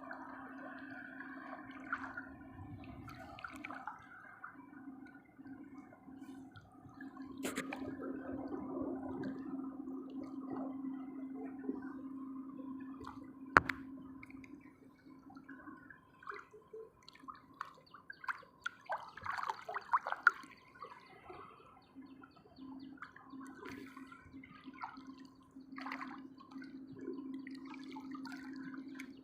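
Sea water sloshing and gurgling with the waves. There are sharper splashes about two-thirds of the way in and one sharp click about halfway through.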